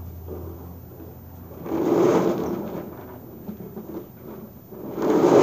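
Small plastic wheels of a ride-on swivel car rolling over rough pebbled concrete, a grinding rolling noise. It comes briefly about two seconds in, then louder and steadier from about five seconds in.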